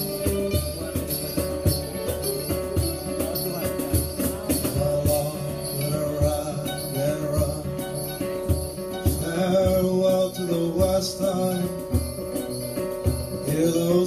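Live acoustic band playing an instrumental passage: strummed acoustic guitars over percussion keeping an even beat, with a melody line coming in about nine seconds in.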